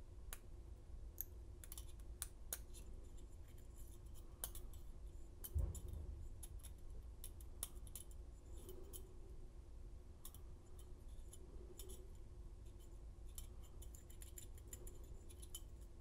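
Faint, irregular small metal clicks and ticks of a Lishi M1/MS2 2-in-1 pick working the pins inside a brass Master-keyway padlock, with one dull bump about five and a half seconds in.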